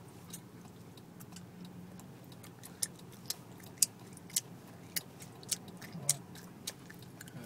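Car turn-signal indicator clicking evenly, a little under twice a second, becoming clearer about three seconds in, over the low hum of the idling car.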